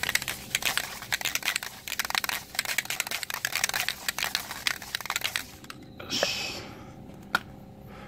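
FW1 waterless wash-and-wax aerosol can being shaken hard, a fast run of rattling clicks for about five seconds, to mix it before spraying. A short rush of noise follows about six seconds in, then a single click.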